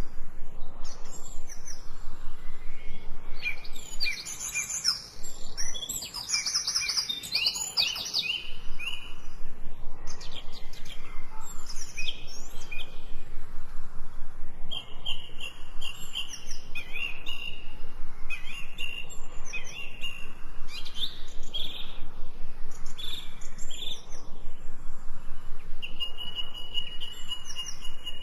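Small songbirds chirping and calling, with several birds overlapping in quick, high repeated chirps and trills, busiest about a quarter of the way in.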